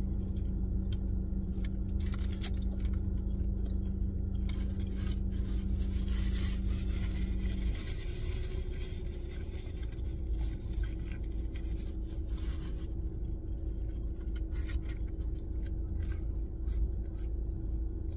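Someone eating a burger and fries: chewing, with paper wrapper and bag rustling in short bursts, over a steady low rumble inside a car. A steady hum under it stops about eight seconds in.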